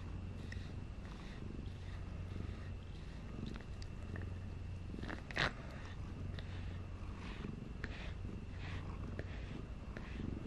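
Domestic cat purring steadily while having its head scratched. A single sharp click sounds about halfway through.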